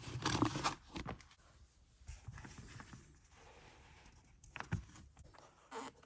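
Hands handling and smoothing a fabric-topped playmat flat on a table: a rustle at the start, then soft handling noise and two light knocks near the end.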